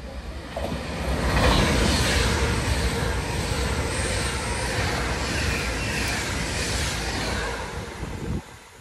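Class 390 Pendolino electric express train running through the station at speed. The rush of wheels and air builds over the first second or so, holds with a steady hum under it, then falls away sharply near the end.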